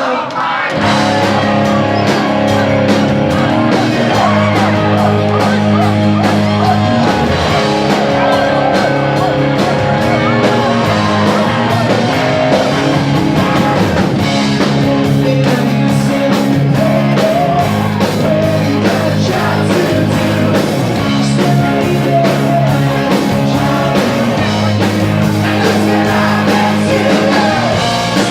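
Live rock band playing loud amplified music: electric guitar, bass and drums keeping a steady beat.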